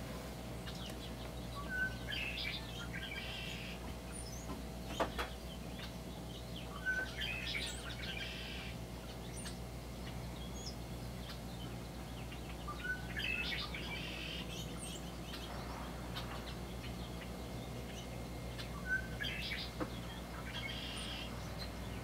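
Red-winged blackbird singing four song phrases, one every five to six seconds, each a short clear opening note followed by a buzzy trill, the conk-la-ree song. A single sharp click about five seconds in, over a faint steady low hum.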